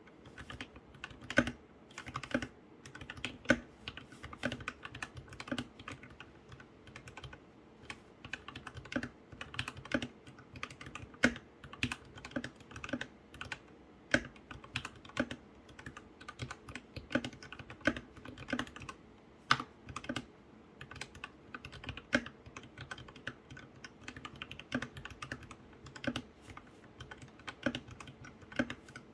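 Typing on a modded RK61 mechanical keyboard with lubed Akko Radiant Red linear switches, foam-modded and band-aid-modded in a plastic case: a steady patter of keystrokes, with a louder, deeper keystroke about once a second.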